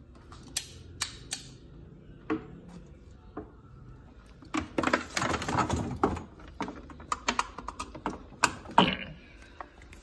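Irregular sharp clicks and knocks of things being handled against hard surfaces, with a rustling scrape lasting over a second about five seconds in. No vacuum motor is running.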